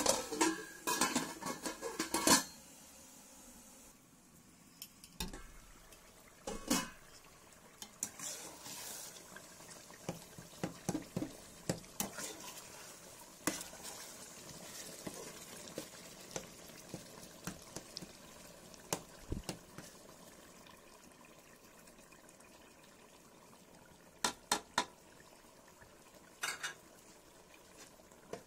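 Metal ladle stirring chopped tomatoes in an aluminium pot, clinking and scraping against the pot's side: a dense run of clinks in the first couple of seconds, scattered ticks after that, and a few sharp knocks near the end.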